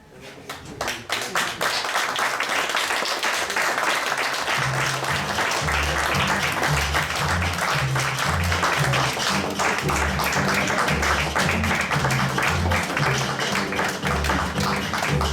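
Audience applauding with dense clapping, joined about four and a half seconds in by lively music with a stepping bass line.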